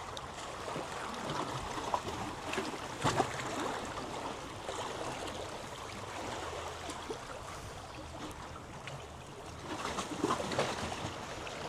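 Seawater washing and splashing around shoreline rocks: a steady rushing wash with a few sharper splashes, about three seconds in and again near the end.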